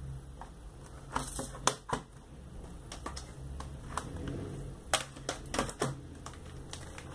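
Plastic CD jewel cases clicking and clacking as they are picked up, turned over and set down on a hard table, in a handful of separate sharp knocks.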